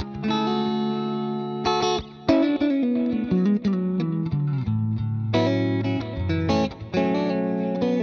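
Electric guitar with ST 'The Badger' humbuckers played through a mildly driven, effected tone. A held chord rings, then a run of single notes falls to a low sustained note about five seconds in, and fresh chords are struck near the end.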